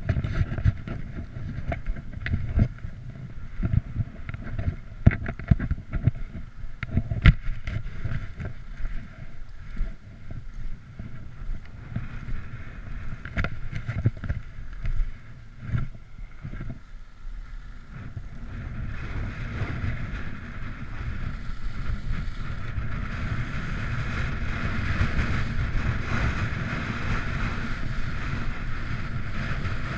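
Skis running fast over groomed corduroy snow, with wind on the microphone. The first half is full of sharp knocks and clatter over a low rumble; past the middle it settles into a steadier, louder hiss of ski edges carving the snow.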